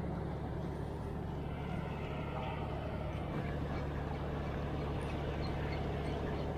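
Steady low engine drone over a haze of wind and water noise.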